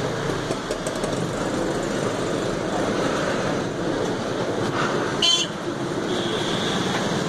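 Steady road traffic noise, with a vehicle horn honking once, briefly and loudly, about five seconds in.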